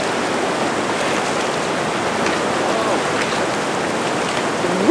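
Gunnison River rapids rushing over boulders, a steady even hiss of whitewater.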